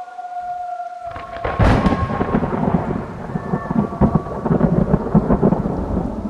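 A thunderclap with rain. Low rumbling starts about a second in, cracks sharply about half a second later, and rolls on with further surges. A faint held tone lies underneath at the start.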